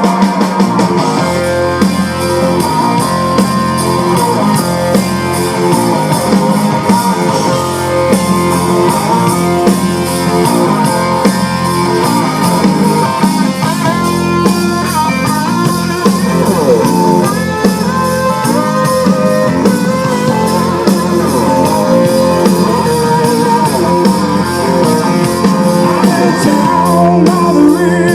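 Live blues-rock band playing: an electric guitar takes the lead with bending notes and quick runs over drums, bass and keys.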